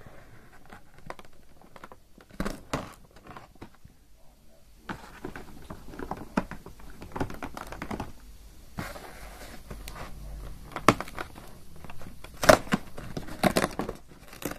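Fingers pushing in and tearing open a perforated cardboard advent calendar door: irregular crinkling and scraping of card with scattered sharp clicks, busiest and loudest in the last few seconds.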